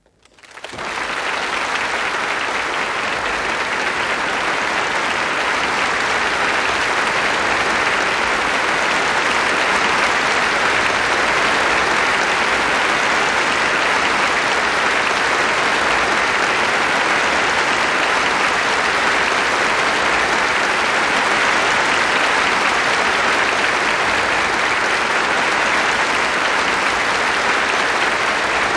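Concert audience breaking into applause about half a second in, rising within a second to steady, dense clapping.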